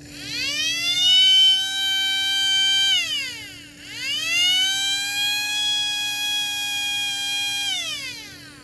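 A 1960s Apex F-901 fire and burglar alarm's motor-driven siren horn wailing. It winds up to a steady high pitch and holds it, winds down and straight back up again about three seconds in, holds again, then winds down near the end.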